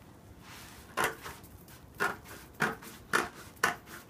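Scissors snipping through a folded stack of tissue paper: five crisp cuts starting about a second in, coming half a second to a second apart.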